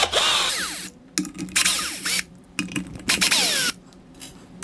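Power drill-driver running in three short bursts, its motor pitch sliding within each, as it backs out the Phillips-head screws holding the woofer to the speaker's front baffle.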